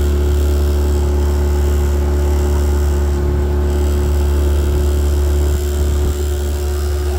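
Outboard motor of a small aluminium boat running steadily at cruising speed under way, with a constant drone and the rush of water and air over the hull.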